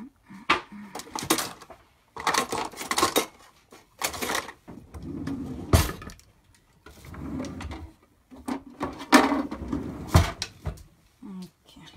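Kitchen handling sounds: irregular knocks and clicks with stretches of rustling and scraping, as of utensils and a foil baking pan being handled.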